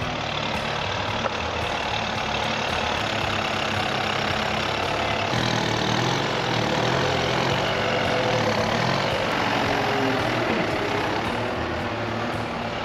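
Kubota tractor's diesel engine running steadily as the tractor drives over grass; its low note shifts about five seconds in.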